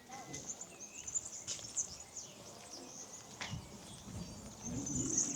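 Small birds chirping and twittering in short, high calls. A couple of sharp clicks come about one and a half and three and a half seconds in.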